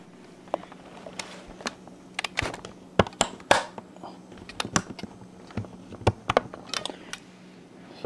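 Irregular clicks and knocks of a restored IBM PC (5150) keyboard's case being handled, with its height and tilt adjustment locks being worked, the sharpest clicks about three seconds in.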